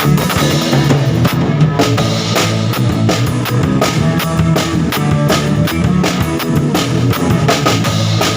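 Rock music with a drum kit keeping a steady beat over bass and guitar.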